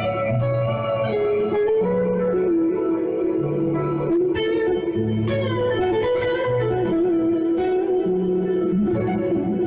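Clean electric guitar through Seymour Duncan '59 humbuckers (SH-1N neck, SH-1B bridge) with heavy delay, playing a slow, sustained melody over lower bass notes that change every second or so.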